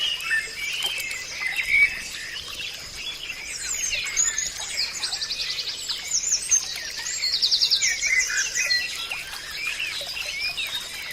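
Several wild birds singing and calling at once in a forest chorus of varied chirps and sweeping whistles. Two rapid trills of quickly repeated notes come about five seconds in and again near eight seconds, over a faint steady high tone.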